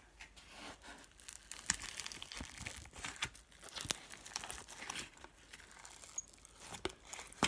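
Old slime with a crunchy, dried-out crust being squeezed and pulled by hand, giving faint, irregular crackles and crinkling clicks.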